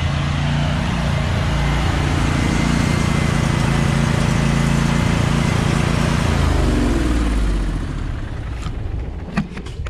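Gas pressure washer engine running under the hiss of the high-pressure water jet. About seven seconds in, the engine note wavers and the spray dies away: a sudden loss of pressure, which the operator bets is a failed check valve. A few sharp clicks follow near the end.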